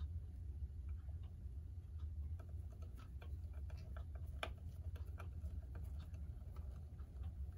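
A screwdriver turning a tight screw out of the clock case, giving irregular small clicks and creaks, a couple of them sharper about three and four and a half seconds in. A steady low hum runs underneath.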